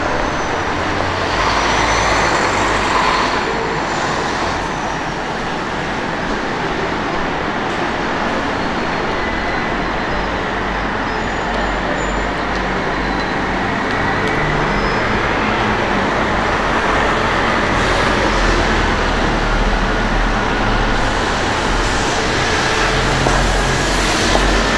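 Steady city street traffic, with vehicles passing. Near the end a Scania N280UD double-decker bus, a compressed-biogas model, comes up to the stop and passes close, growing louder.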